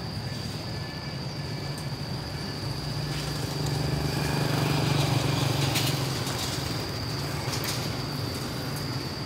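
Street traffic going by, one vehicle passing louder in the middle, over a steady high-pitched whine, with a few light clicks.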